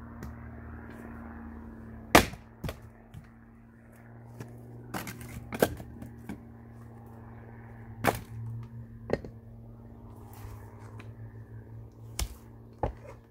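A Hults Bruk axe chopping and splitting firewood on a chopping block: about eight sharp cracks and wooden knocks spread through, the loudest about two seconds in. A steady low hum runs underneath.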